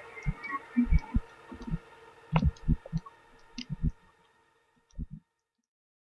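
Sound-design track of irregular low thuds and small high clicks over a steady hum. The hum fades out about four seconds in, and a last cluster of thuds comes shortly before the sound stops altogether.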